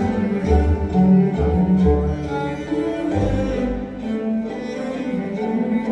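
Recorded music with cello and other bowed strings over heavy deep bass notes, played back on a hi-fi system.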